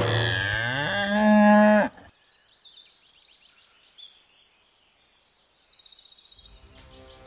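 A cow mooing once, a long low call that jumps higher in pitch about a second in and cuts off sharply at about two seconds. Faint high chirping follows, and soft music fades in near the end.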